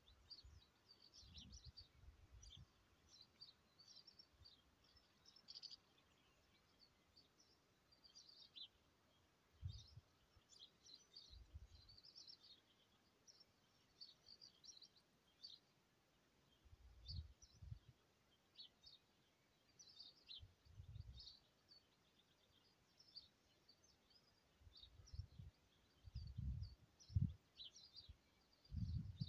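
Faint chirping and twittering of small birds, with occasional brief low rumbles, the loudest near the end.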